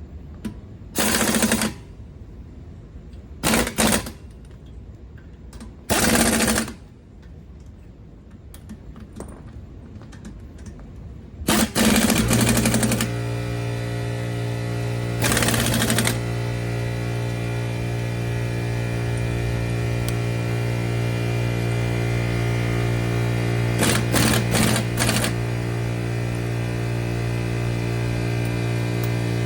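Impact wrench fired in short rattling bursts, six in all, a couple of seconds apart, as it runs wheel lug nuts on or off. About twelve seconds in, a steady machine hum starts and keeps running under the later bursts.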